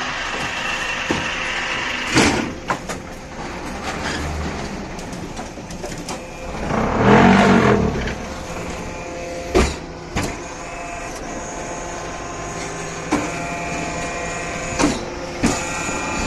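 QTY9-18 concrete block-making machine running: a steady mechanical hum from its motor and hydraulic unit, broken by several sharp metal clanks, with a louder, lower rumble for a second or two about seven seconds in.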